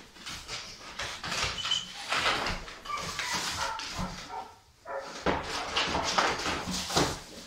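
German shorthaired pointer moving about on a wooden parquet floor: irregular scuffling noise with a few brief high whines in the first half.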